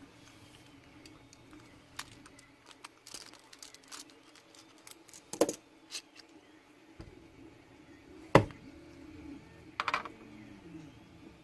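Scattered light metal clicks and taps from a screwdriver and a lock being handled, with a few sharper knocks, the loudest about eight seconds in.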